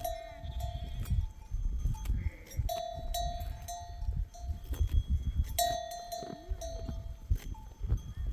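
Livestock bells on a moving flock of sheep clanking in clusters of about three strikes every few seconds, over a low rumble.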